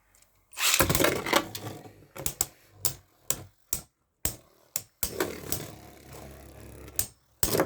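Two Beyblade Burst spinning tops clashing in a plastic stadium: a burst of clattering just over half a second in, then sharp separate clacks of hits, another dense stretch of clatter from about five seconds in, and a loud burst near the end.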